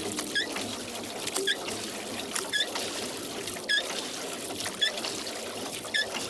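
Rowboat being rowed: water trickling and splashing off the oars, with a short squeak from the oarlocks about once a second.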